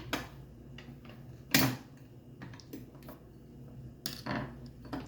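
Sharp clicks and clacks from an Edwards 270 fire alarm pull station being handled while it is reset: the mechanism and cover snapping, with one loud clack about a second and a half in and lighter clicks after.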